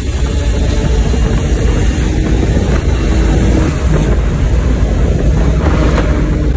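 Steady, loud cabin noise inside a BMW 335i at highway speed: the N54 twin-turbo straight-six engine running under road and wind noise.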